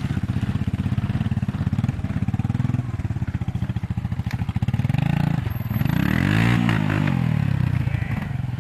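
Honda TRX250 farm quad's single-cylinder engine running as it is ridden over rough grass. It revs up and back down about six seconds in, the loudest moment.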